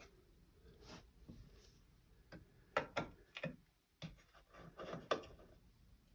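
Small scattered clicks and light scraping of a precision Torx T6 security screwdriver working out the tiny screws inside a Mac Mini.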